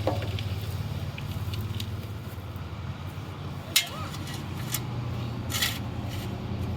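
A motor running steadily with a low drone, with a few short knocks and rattles over it.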